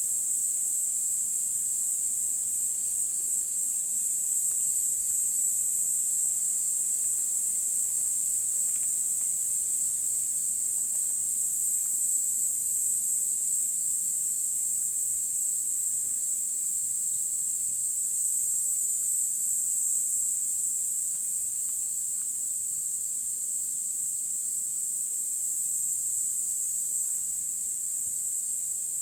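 A steady, high-pitched chorus of insects in a forest, trilling without a break.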